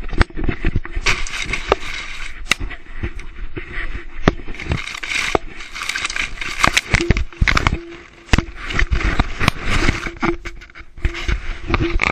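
A GoPro camera in its case being knocked about and scraped through grass by a puppy: constant rustling and scraping against the case, with frequent sharp knocks.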